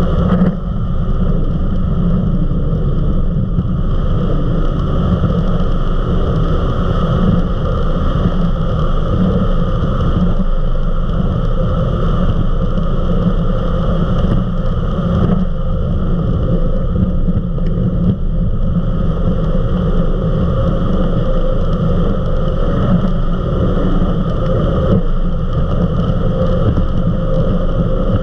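Eliminator 31 XO Speedster powerboat running steadily at about 70 mph: a continuous, even engine drone at high speed.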